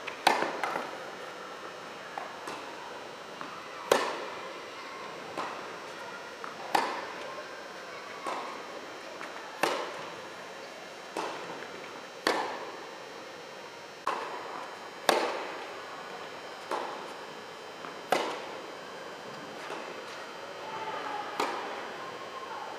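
Tennis ball struck back and forth by rackets in a long rally, a hit about every second and a half. Louder near strokes alternate with fainter far ones, each echoing in a large indoor hall.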